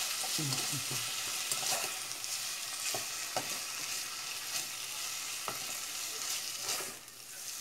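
Diced tilapia sautéing in a pot with a steady sizzle, stirred with a wooden spoon that knocks and scrapes against the pan a few times. The sizzle dips briefly near the end.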